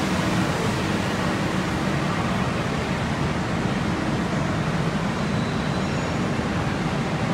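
Steady, even rumble and hiss of a railway station platform under a train-shed roof, with no single sound standing out.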